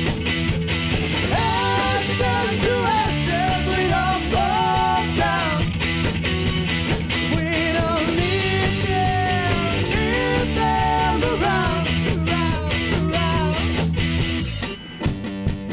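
Live rock band playing: distorted electric guitars, bass and drums under a male lead vocal. Near the end the full band cuts out abruptly, leaving a sparser guitar part with separate drum hits.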